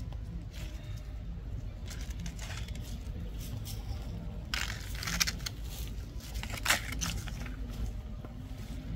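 Dry leaves crackling and crinkling in a few short clusters, the loudest about halfway through and another near the end, over a steady low rumble.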